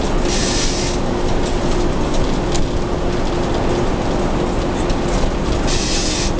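Gardner 5HLW five-cylinder horizontal diesel engine of a 1959 Bristol MW5G coach running steadily under way, heard from inside the cab along with road and body noise. A steady whine runs under it, and two short hisses come about half a second in and again near the end.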